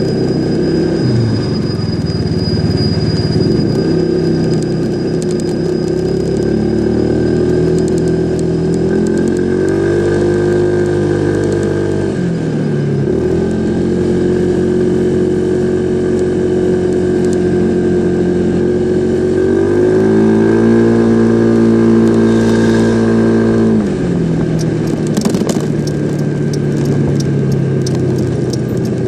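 Yamaha SMAX scooter engine running, revved up twice and allowed to drop back, along with a faint steady high whine; the owner is recording it for an abnormal noise.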